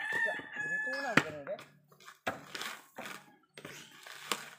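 A rooster crowing, one long held call that ends about a second in, followed by four dull thumps about 0.7 s apart as coconuts are handled.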